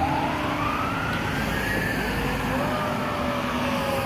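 Fire truck siren wailing in a slow rise and fall, heard from a distance as the truck drives away, over the noise of passing car traffic.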